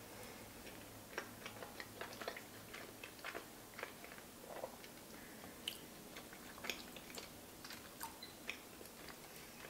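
A person chewing a mouthful of pasta, close to the microphone: soft, irregular wet clicks and smacks from the mouth.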